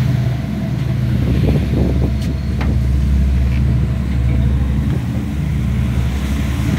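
Steady low drone of the search-and-rescue ship's engines heard from the open deck while under way, over a haze of wind and water noise, with a few brief clicks about two seconds in.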